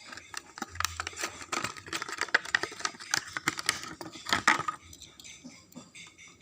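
A toy car's packaging being handled and opened, giving a dense run of quick clicks and crackles that eases off to a few faint ones about five seconds in.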